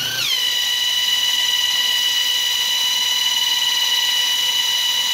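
Cordless impact wrench running flat out and spinning an alternator through its pulley: a steady high whine that sags slightly in pitch just after starting, then holds. The sag fits the strain of the alternator coming on load as it begins charging the battery at about 14 V.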